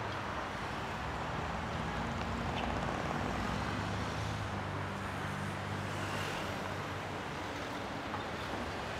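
Street traffic noise: a steady hum of passing road vehicles, with a low engine drone from buses and cars.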